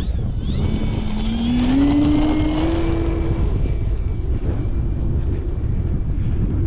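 Electric motor and propeller of an E-flite Extra 300 model plane whining, rising in pitch over about three seconds and then fading, over heavy wind buffeting on the microphone.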